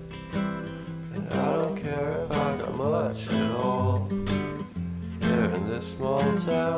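Background song: acoustic guitar strumming chords, with a singing voice holding a wavering melody in two phrases over it.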